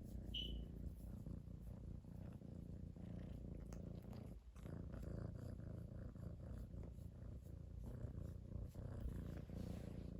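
Domestic cat purring steadily, with a brief break about four and a half seconds in. A short high squeak sounds just after the start.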